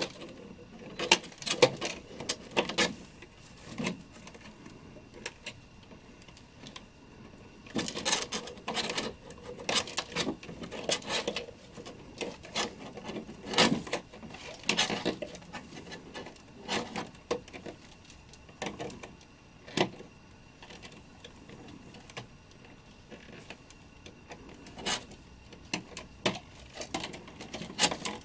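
Clear plastic bag crinkling and rustling in irregular bursts as a figure wrapped in it is lifted and worked out of a cardboard box.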